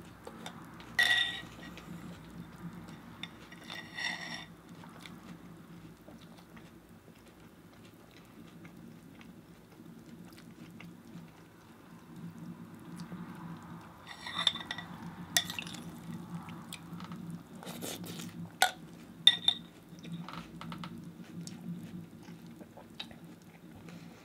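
Spoon clinking against a cereal bowl during eating: several separate ringing clinks, one about a second in, another about four seconds in, and a cluster from about fourteen to twenty seconds in.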